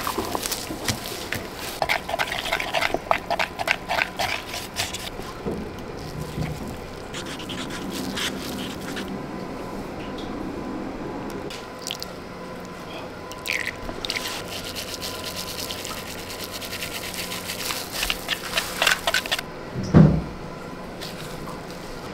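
Epoxy resin being mixed in a plastic cup: liquid sounds as a wooden stir stick works through it, with frequent small clicks and scrapes of the stick against the cup. One dull thump sounds near the end.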